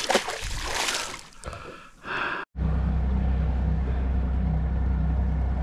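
A released barramundi splashing back into the water beside the boat, with the water noise dying away over about two seconds. About two and a half seconds in, it gives way to the steady low hum of the boat's outboard motor running underway.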